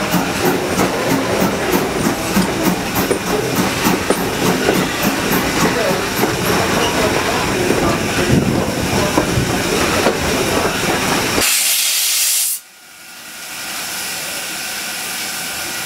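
Baldwin steam locomotive No. 90 running at close range with a fast, regular clatter. About eleven and a half seconds in, a loud hiss of steam lasts about a second, then a quieter steady hiss from the standing locomotive.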